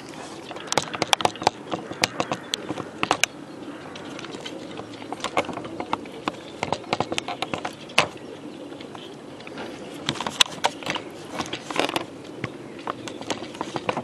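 Many racing pigeons crated in a transporter, a steady din of cooing with irregular sharp clicks and knocks from birds and crate parts, in loose clusters.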